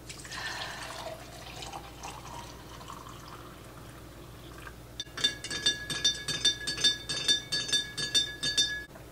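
Hot water poured into a coffee mug for a few seconds to warm it. About five seconds in, a run of rapid, even clicks over a steady high tone starts, about five a second, and cuts off suddenly near the end.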